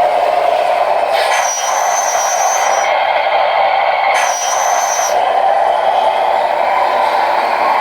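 Radio-controlled scale model truck running with a steady mechanical drone. Between about one and five seconds in, a higher hissing whine is layered on top and then stops.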